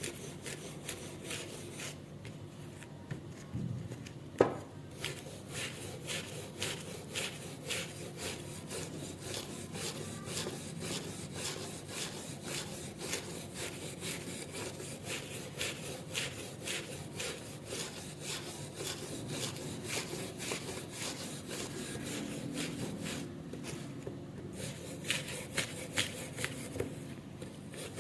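Repeated hand scraping strokes on rusted steel garden shears, about two to three a second, as rust is worked off the metal. One sharp knock stands out about four seconds in.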